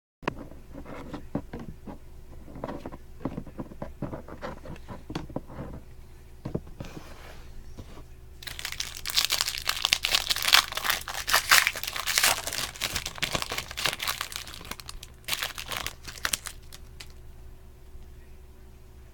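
Trading card pack being handled with light rustles and clicks, then its wrapper torn open and crumpled in a loud, dense crinkling for about eight seconds from near the middle.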